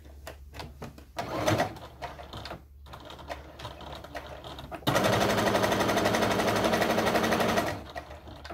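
Electric sewing machine stitching a dart through fleece: a steady run of about three seconds starting about five seconds in, after light clicks and fabric handling.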